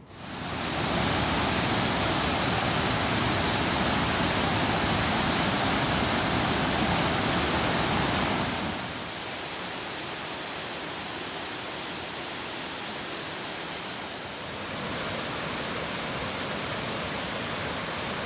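Waterfall, a steady rush of falling water that starts abruptly, drops noticeably in level about eight or nine seconds in and rises a little again a few seconds later.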